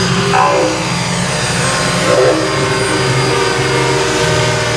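TDR model helicopter's main and tail rotors and drive running steadily as it lifts off and climbs.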